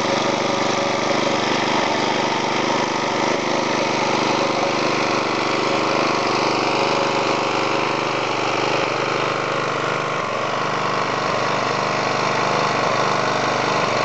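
3.75 hp Briggs & Stratton single-cylinder vertical-shaft engine on a rebuilt MTD rototiller running steadily at an even speed.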